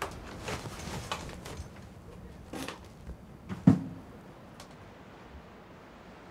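A door being handled: a few light knocks and clicks, then one sharp, heavy thump a little past halfway.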